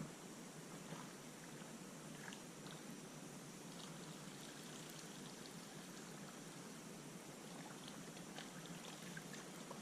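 Faint, steady trickle of creek water, with a few small scattered ticks.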